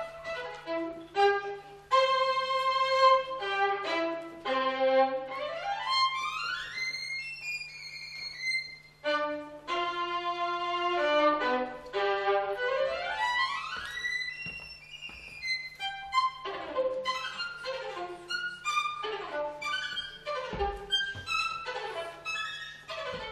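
Solo violin played unaccompanied in a virtuoso style: fast passages of quick notes, twice sweeping upward in long rising runs, between held notes. A steady low electrical hum sits beneath.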